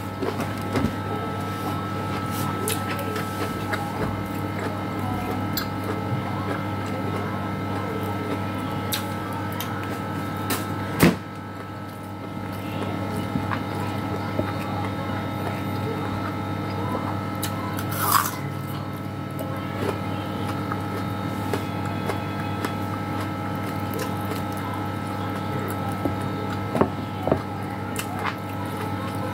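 Eating sounds: chewing and small, irregular mouth and hand clicks as fried fish, green beans and rice are eaten by hand. There is one sharper knock about eleven seconds in. All of it sits over a steady low hum.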